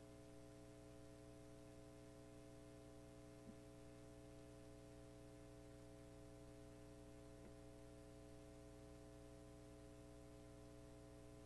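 Near silence, with a steady electrical hum and one faint click a few seconds in.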